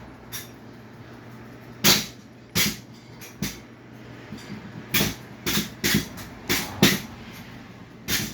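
Repeated sharp bangs from metal scrapping work, about nine irregular impacts, most of them in the second half. Under them is the steady low hum of a running ceiling fan.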